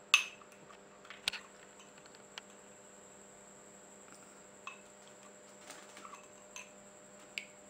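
A steel spoon and a glass jar clink against a drinking glass as a lemon-spice paste is scraped from the jar into the glass. A sharp clink comes right at the start, then scattered lighter clinks and taps.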